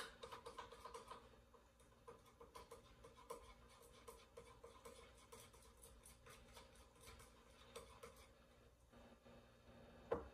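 Near silence: faint room tone with scattered, irregular soft clicks and ticks, and a slightly louder click near the end.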